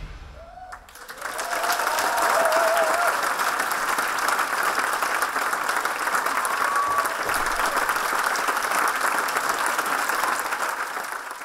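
Large audience applauding after the music stops. The clapping swells about a second in, holds steady, then fades away near the end.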